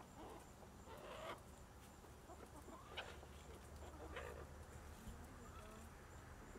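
Chickens clucking faintly, with a few short calls about one, three and four seconds in.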